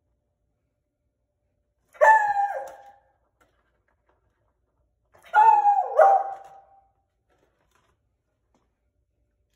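Beagle barking: one bark about two seconds in, then two barks in quick succession a few seconds later, each with a short falling tail.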